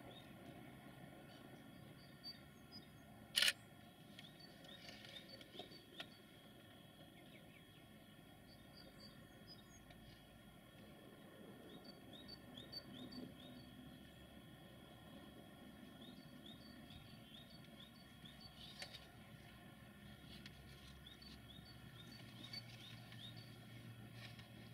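Quiet rural ambience with small birds chirping over and over, a single sharp click about three and a half seconds in, and a faint steady low drone from the distant freight train, a little stronger near the end.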